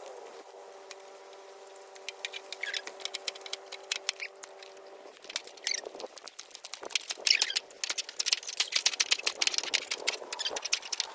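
Flint and steel being struck over and over to light a fire: quick scratchy scrapes and clicks, sparse at first and coming thick and fast in the second half. A steady hum sounds under them for about the first five seconds.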